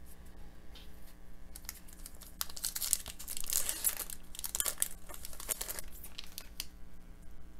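Foil wrapper of an Upper Deck hockey card pack being torn open and crinkled: a dense crackling that starts about a second and a half in, is loudest in the middle and dies away near the end.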